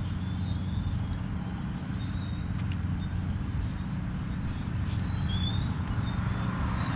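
Steady low engine hum, with a bird chirping about five seconds in.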